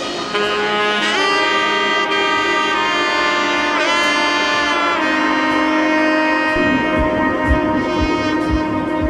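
Background music: a lead melody of long held notes, with one note bending about four seconds in, and a low beat of about two pulses a second that comes in about six and a half seconds in.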